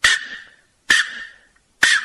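Ancient Mexican clay noise whistle blown in three short, sharp blasts about a second apart. Each blast is a hissing shriek around one high tone that dies away quickly.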